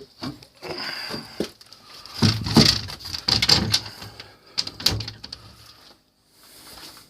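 Footsteps and knocks of a person walking and climbing, a series of uneven thumps, loudest about two to five seconds in.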